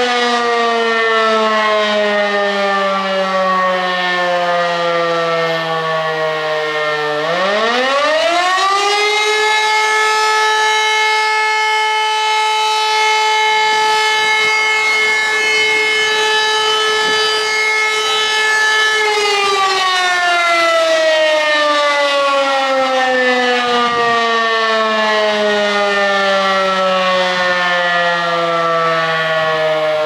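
E57 electromechanical siren sounding the fire-alarm signal during a test. It first winds down, then about seven seconds in spins up quickly to a steady wail. It holds that pitch for about ten seconds, then winds down slowly between the tones of the signal.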